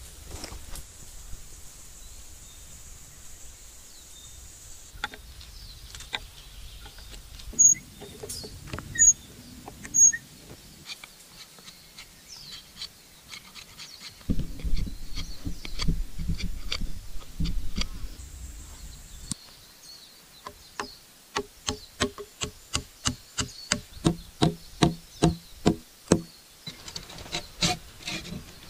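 Hand work on wood: scattered knocks, three of them loud and sharp, and a few seconds of low rubbing. Near the end comes a steady run of quick strokes, about three a second, for some six seconds.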